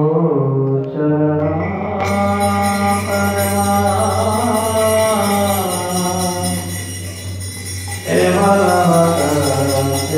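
Devotional arati singing: a voice holding long sung notes over a steady drone, with jingling hand cymbals joining about two seconds in. The voice breaks off briefly near the end and starts a new phrase.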